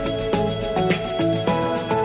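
Background music with a steady beat, about three beats a second, under a melody of changing notes.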